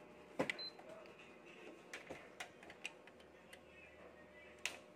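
Scattered light clicks and taps from handling a Canon imageRUNNER 6255-series copier's control panel and main power switch, with a short high beep about half a second in. A sharper click comes near the end at the power switch.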